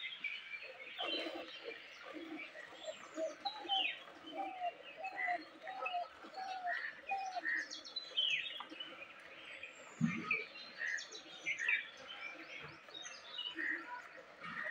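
Songbirds chirping and calling, with short high chirps, a few falling whistles and a repeating lower note. A brief low thump about ten seconds in.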